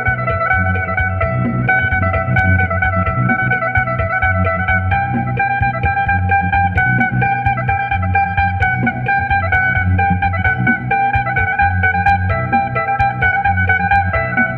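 Amplified phin, the Isan Thai plucked lute, playing a melody of quickly picked notes over a steady low drone.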